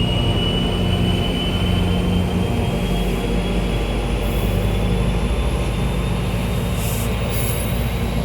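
F40PH-3C diesel locomotive running close by with its train: a steady low engine drone, and over it a thin whine that slowly rises in pitch.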